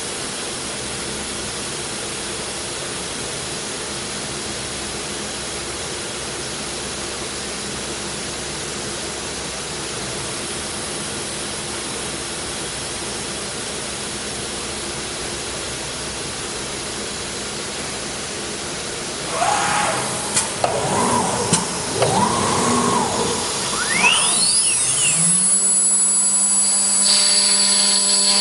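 CNC wood router with a 9 kW HSD spindle: a steady machine hiss, then about 19 seconds in, uneven whirring and cutting noise. Near 24 seconds a whine rises as the spindle speeds up, then holds as a steady high-pitched whine while the spindle cuts into the board.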